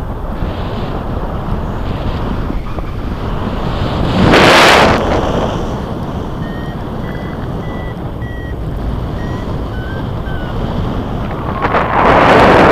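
Wind rushing over the microphone of a paraglider in flight, rising to two louder gusts, one about four seconds in and one near the end. Faint short beeps from a flight variometer sound through the wind in the middle stretch.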